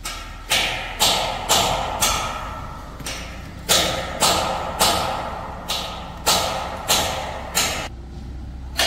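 A run of sharp knocks, about two a second at a slightly uneven pace, each dying away quickly before the next.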